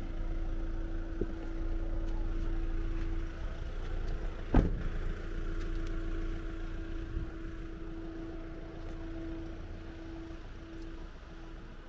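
Campervan engine idling with a steady low rumble and hum, heard from inside the cab. A single sharp thump about four and a half seconds in is the cab door being shut.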